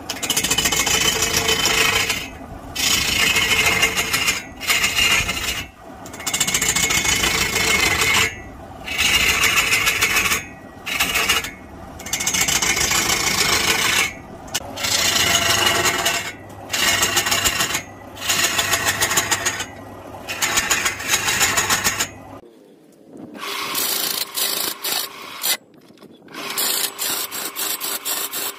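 Hand-held steel chisel cutting into a large wooden log spinning on a belt-driven lathe: a harsh scraping hiss in passes of a couple of seconds, broken by short pauses as the tool is lifted. Near the end the cutting turns into a fast rattling chatter.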